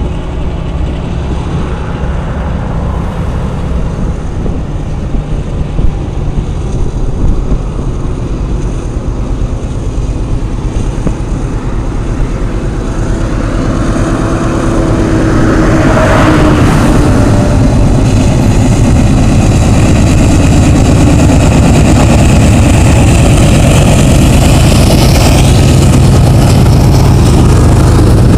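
CSX freight train's diesel locomotives approach and pass close by, their engine sound building to a peak about sixteen seconds in. Then a steady, loud sound of loaded coal hopper cars rolling along the track.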